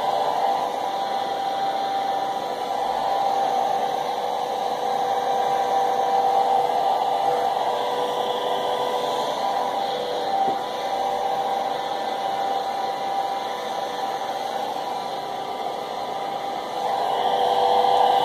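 Hand-held hair dryer running steadily: a constant rush of air with a steady motor whine, a little louder near the end.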